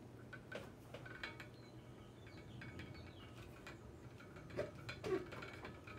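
Faint, scattered light clicks and metallic clinks as a metal antenna mast and its metal current loop are handled and the loop is fitted into the mast's top section, over a low steady hum.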